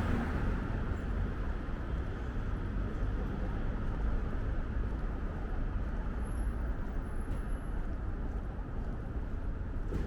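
City street traffic: a steady low rumble of passing cars and general urban background noise, a little louder in the first moment.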